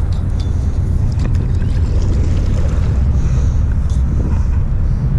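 Wind buffeting the camera microphone, a steady heavy low rumble, over kayak-paddle strokes splashing in the water and a few light knocks.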